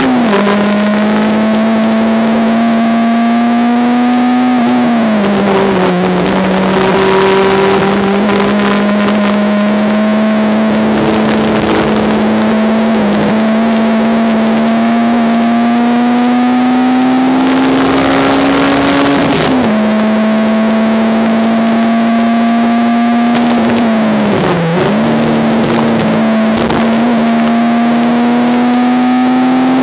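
Honda Civic race car's engine heard from inside the car under hard acceleration. Its pitch climbs slowly through each gear and drops sharply at the gear changes, with two deeper falls in pitch, around 5 s and near 25 s, as the car brakes and shifts down.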